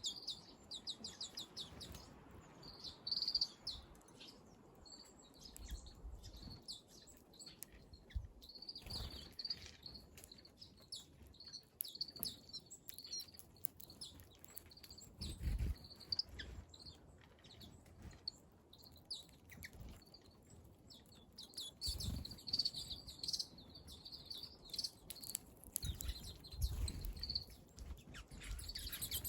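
Small wild birds chirping, with runs of short high calls in quick succession. A few dull low thuds come in between.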